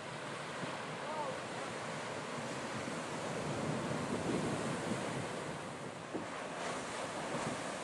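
Heavy surf breaking and washing in over a beach of black volcanic pebbles, a steady rushing roar of water, with wind buffeting the microphone.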